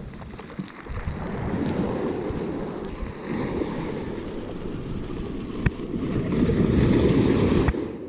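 Wind buffeting the microphone over the wash of surf on a beach, swelling in strength, with one sharp click about six seconds in; the noise drops away suddenly near the end.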